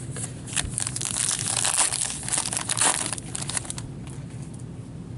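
Gloved hands handling a stack of hockey trading cards: a dense rustling and scraping of card stock for about four seconds, then only faint handling.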